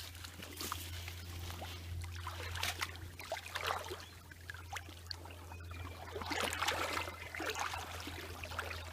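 Creek water splashing and trickling in irregular sloshes, over a steady low hum.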